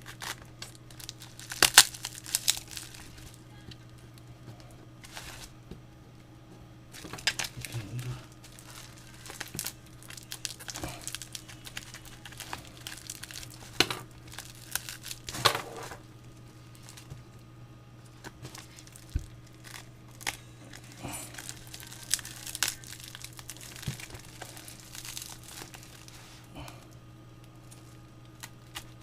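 Plastic packaging and bubble wrap being crinkled and torn open by hand: irregular crackling with a few louder snaps, over a steady low hum.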